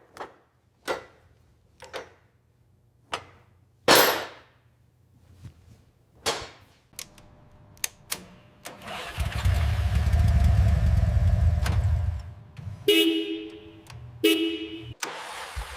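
A series of sharp knocks about a second apart, then a small engine running for a few seconds, followed by two short horn honks.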